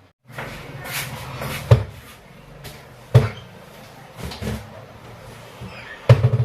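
Kitchen handling sounds: a few sharp knocks and clunks, like a cupboard door or utensils being moved, over a steady low hum. The loudest knocks come a little under two seconds in, at about three seconds, and in a quick cluster near the end.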